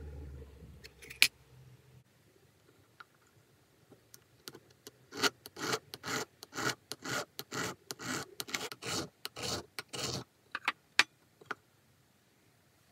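Needle file rasping back and forth on a small sterling silver blank, in quick strokes of about three a second for some five seconds. A single sharp click comes about a second in, and a few light taps follow the filing.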